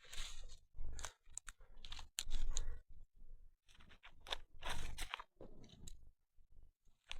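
Footsteps crunching and crackling through dry leaf litter and twigs in uneven bursts, with sharp snaps among them, thinning out near the end.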